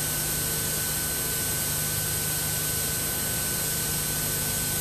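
Steady hiss with a low hum and a couple of thin, steady high tones: the background noise of an old video tape soundtrack. There is no other sound.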